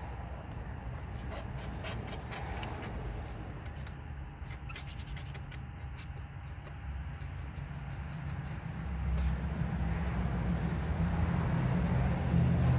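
Razor blade scraping and peeling an old vinyl sticker off a car's painted fender, heard as short scratchy ticks. A low rumble builds about two-thirds of the way in and is loudest near the end.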